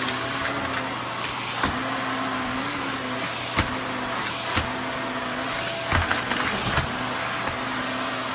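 Vacuum cleaner running steadily while sucking up crumbled sand-wall debris, with sharp clicks several times. It is overfilled with debris, which the owner says has made its sound go wrong.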